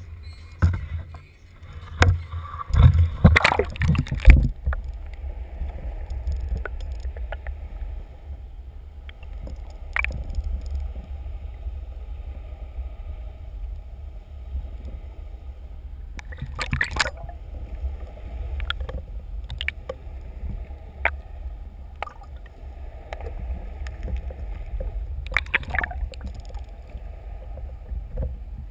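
Splashing and knocks as a camera is plunged into the sea, loudest in the first four seconds. After that, a muffled low underwater rumble with a few sharp knocks now and then.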